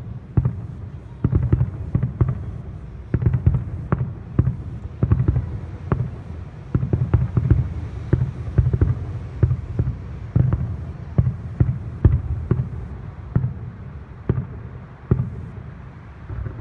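Aerial fireworks exploding in a rapid, irregular series of booms and bangs, several a second at times, thinning out and growing quieter near the end.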